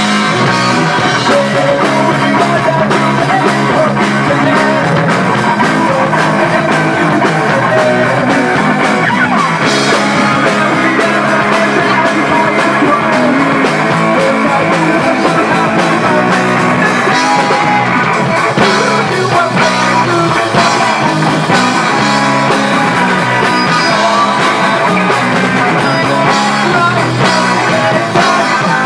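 Live rock band playing loud: electric guitar, bass guitar and drum kit, with a man singing at the microphone.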